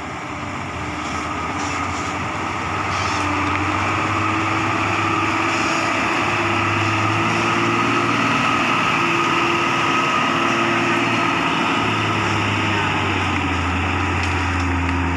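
Diesel tanker truck's engine running under load as it crawls through deep mud, getting louder as it comes close. A low steady note shifts pitch a few times.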